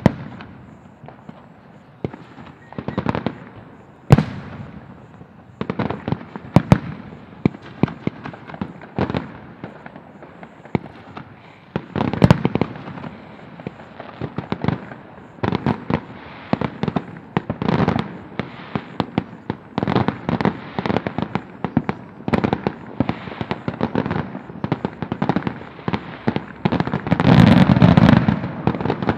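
Fireworks display: aerial shells booming one after another, sparse at first and then coming thick and fast, with a dense run of bangs and crackle near the end.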